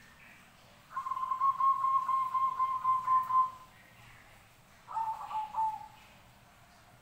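Zebra dove (perkutut) cooing: a long, rapidly pulsing trilled phrase of about two and a half seconds, then a shorter, slightly lower phrase that falls away near the end.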